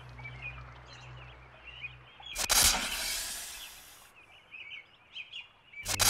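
A snake hissing once, a long breathy hiss starting about two seconds in and fading over about a second, over steady chirping of small birds.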